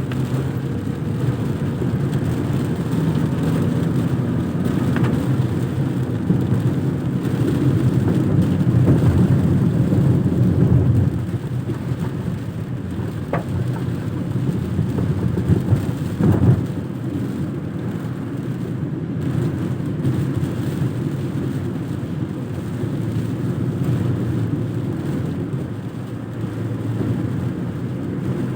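Car driving on a rain-soaked road, heard from inside the cabin: a steady low rumble of engine and tyres with rain on the car. The rumble is louder for a few seconds before the middle, then eases. A single short thump comes a little past the middle.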